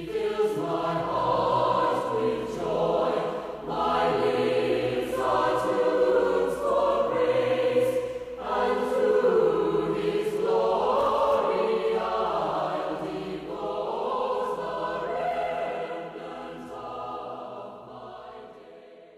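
Choir singing as background music, fading out near the end.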